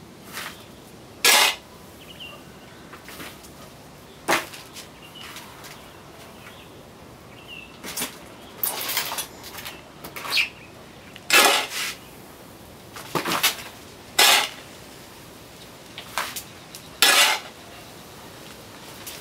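Shovel scooping potting mix of manure and raw rice husk and tipping it into plastic pots: about a dozen short scraping, rattling strokes at irregular intervals.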